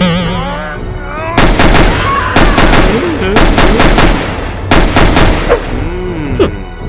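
Several short bursts of rapid automatic gunfire, the first about a second and a half in, then two more a second or so apart; a gun sound effect standing in for toy blasters in a mock battle.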